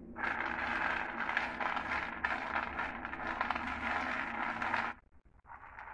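Raw peanuts being stirred by hand on a plate, the nuts rattling and scraping against the plate and each other. The stirring stops about five seconds in and starts again briefly near the end.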